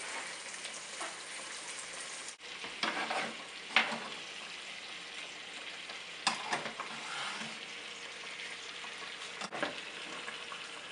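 Chicken breast and thigh frying skin side down in hot oil and butter: a steady sizzle, with a few brief louder crackles.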